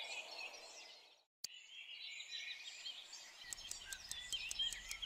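Faint background ambience of small birds chirping and twittering, with a brief gap of silence about a second in.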